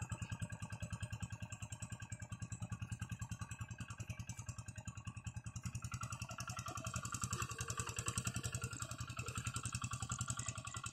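Old Kubota engine on a two-wheel hand tractor running steadily with a rapid, even putter while it pulls a moldboard plow through a flooded rice field. The engine is working under the load of plowing.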